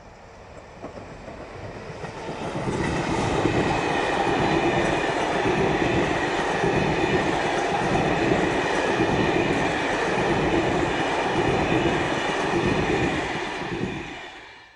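A train passing close by. The rolling noise builds over the first few seconds as it approaches, then holds steady and loud as the coaches go by, with a rhythmic clatter of wheels over rail joints and a faint high whine. It cuts off abruptly at the end.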